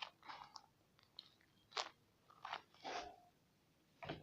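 Handmade paper squishies being handled, the paper and tape giving a faint crinkle in several short bursts.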